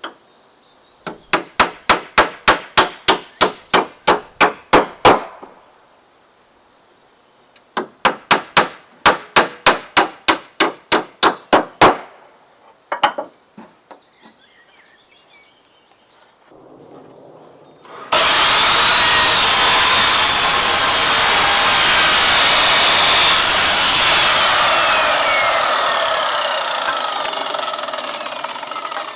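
A hammer driving nails into wood with quick, even blows, about three a second, in two runs of about a dozen strokes with a few more after. Then a power saw cuts wood loudly and slowly winds down near the end.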